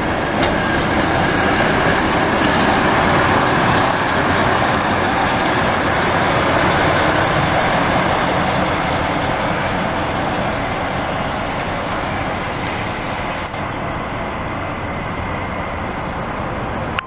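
Romanian-built MÁV M47 class diesel-hydraulic shunting locomotive running by at close range, a steady loud engine-and-rail noise with no sudden events.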